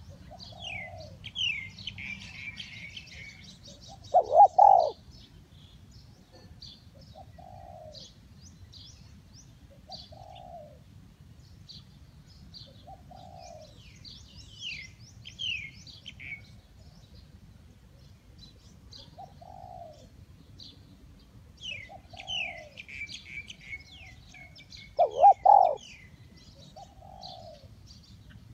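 Spotted dove cooing: short low coos repeat every two to three seconds, with a loud doubled coo about four seconds in and again near the end. Small birds chirp and twitter with high falling notes over it.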